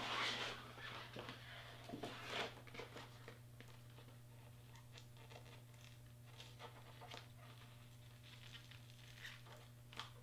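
Faint rustling and small handling clicks, loudest in the first couple of seconds, over a steady low electrical hum.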